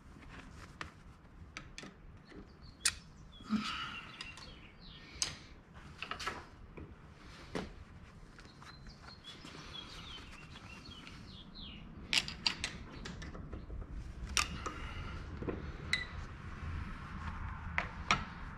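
Steel tools clicking and scraping against a snap ring inside the bore of a Ford 770B loader's hydraulic lift cylinder, in scattered sharp clicks a second or two apart: prying out a broken snap ring.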